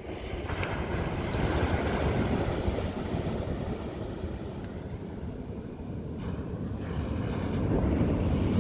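Sea waves breaking and washing up the beach, swelling louder about a second in and again near the end, with wind buffeting the microphone.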